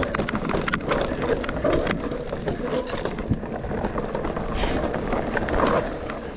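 Mountain bike being ridden along a muddy trail: wind noise on the microphone over tyre noise, with frequent knocks and rattles from the bike.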